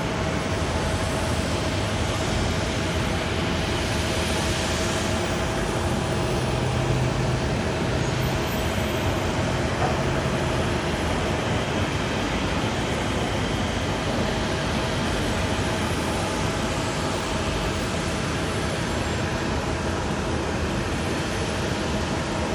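Steady airport noise: an even rumble and hiss of distant jet aircraft with a faint constant whine.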